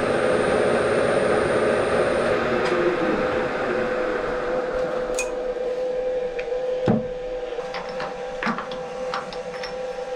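Bridgeport milling machine's end mill cutting a slot in a metal bar, over the steady hum of the running spindle. After a few seconds the cutting noise fades, leaving the spindle running and a few sharp metal clicks and knocks, the loudest about seven seconds in.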